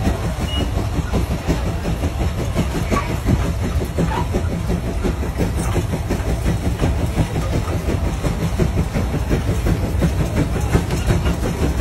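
Case steam traction engine chuffing steadily under heavy load in a fast, even exhaust beat as it pulls a 44-bottom gang plow.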